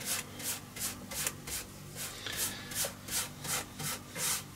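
A paintbrush scrubbing linseed oil into bare wood, back-and-forth strokes of about three a second.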